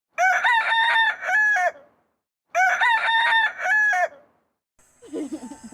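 A rooster crowing twice, two long cock-a-doodle-doo calls about a second apart that look almost identical. Near the end, quieter mixed sounds with a steady high whine follow.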